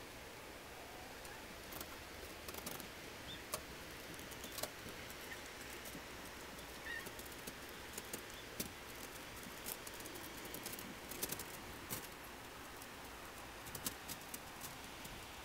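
Cats' paws stepping on snow: faint, irregular crisp ticks and crunches over a steady hiss.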